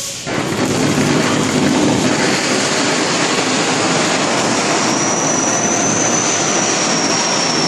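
Cold spark fountain (cold anar) firework catching as it opens and spraying with a loud, steady rushing hiss. A faint high whistle joins the hiss about five seconds in.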